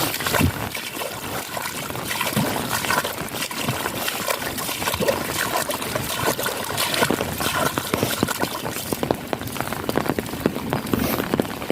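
Steady rain with water trickling and dripping, a dense run of small drop hits throughout.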